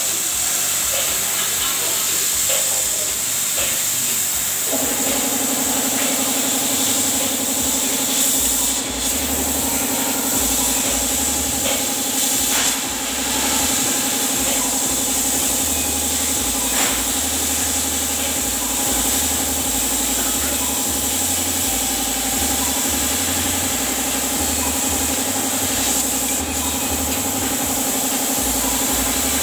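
CO2 laser cutter at work on plywood: a steady hiss of compressed air blowing from the air-assist compressor, with a steady machine hum that switches on about five seconds in and a faint uneven low rumble.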